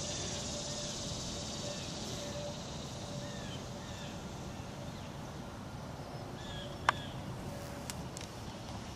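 Outdoor riverside ambience: a steady background hiss with a few faint, short bird chirps. A single sharp click comes about seven seconds in, with two softer clicks about a second later.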